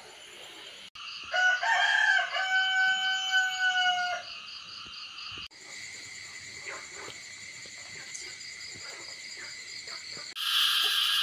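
A rooster crows once, one long call of about three seconds starting a second or so in, over a steady high background chorus of night insects.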